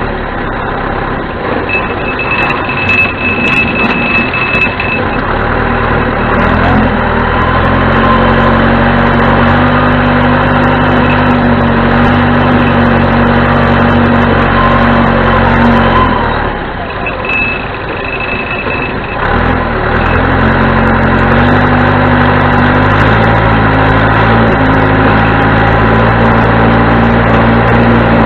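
1987 John Deere 210C backhoe loader's four-cylinder diesel engine running at work, its pitch rising as it takes up revs and dropping back for a few seconds past the middle before climbing again.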